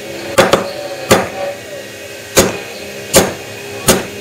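A steel screwdriver striking a pocketed aluminum Spyderco Manix 2 handle scale again and again: five sharp metallic clanks that ring briefly, the first with a quick double hit. It is an impact test of the thin wall behind the pocket, to see whether it dents. A steady hum runs underneath.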